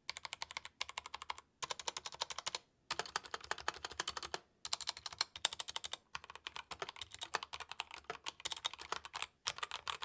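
Typing on a stock Royal Kludge RK84 mechanical keyboard, a 75% board with a thick plastic case and a metal plate. It makes a fast, steady run of key clacks, broken by a few short pauses.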